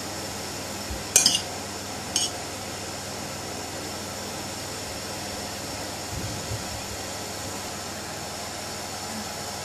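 A metal spoon clinks twice on crockery, about a second apart, over a steady background hiss.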